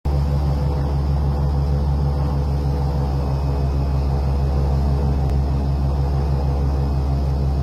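Airboat's engine and propeller running steadily while under way, a loud low drone with a fast, even throb.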